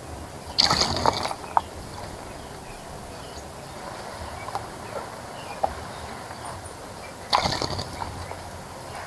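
A bird splashing in a bird bath: two short bouts of splashing, one about half a second in and one near the end, with a steady hum of insects in the background.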